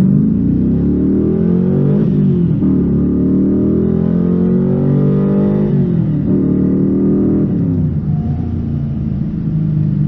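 Camaro Z28's LT1 small-block V8 accelerating hard, its pitch climbing, dropping sharply at about two and six seconds in as it shifts up, then settling lower and easing off near the end.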